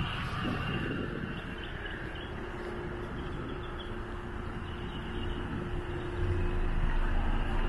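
Outdoor background noise with a steady low rumble that grows louder about six seconds in.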